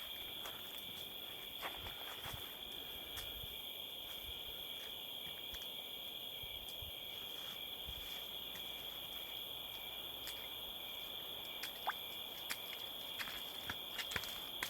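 A steady chorus of crickets trilling at night, faint and unbroken, with a few short sharp clicks or snaps near the end.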